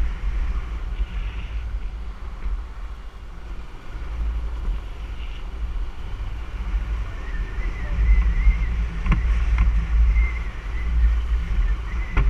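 Wind buffeting the microphone of a camera on a moving motorbike, a steady low rumble with the bike running underneath. A couple of sharp knocks come about nine seconds in.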